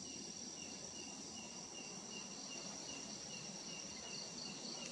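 Night insects such as crickets calling: a steady high-pitched trill, with another chirp repeating evenly about two or three times a second.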